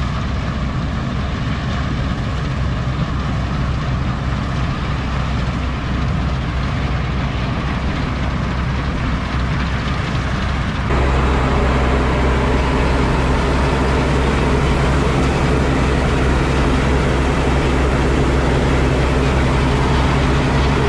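Farm tractor engine running steadily. About eleven seconds in the sound abruptly gets louder, with a deeper, stronger engine hum.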